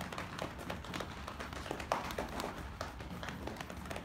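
Hands patting and tapping on the belly, a fast, uneven run of light taps with one sharper tap about two seconds in.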